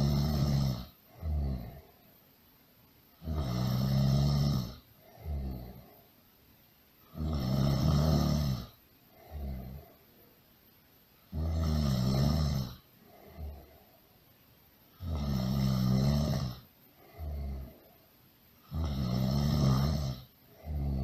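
Loud snoring, repeating evenly about every four seconds: each cycle is a long rasping snore followed by a shorter, quieter one.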